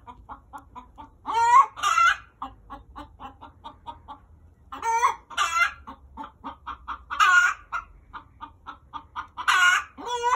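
Chickens cackling, 'screaming': a fast run of short clucks, several a second, broken every two to three seconds by a loud, drawn-out squawk.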